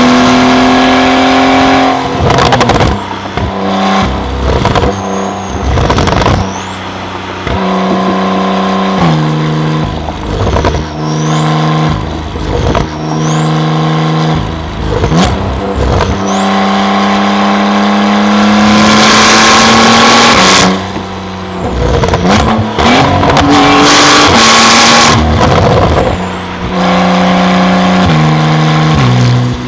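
Porsche 911 Carrera 991.2 twin-turbo 3.0-litre flat-six with a titanium exhaust, running hard under load. The engine note holds or climbs, then drops in steps at repeated gear changes, with short ragged crackling gaps as the throttle lifts between pulls.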